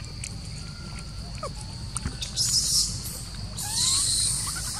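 Outdoor park ambience: a steady high insect drone with a few bird chirps, and two short, louder hissing bursts in the second half.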